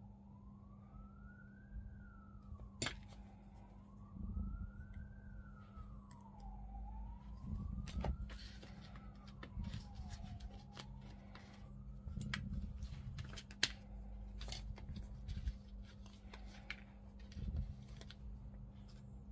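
A faint siren wailing, its pitch rising and falling slowly about every three seconds before fading out about two-thirds of the way through. Scattered light clicks and taps from small plastic model parts being handled run alongside it.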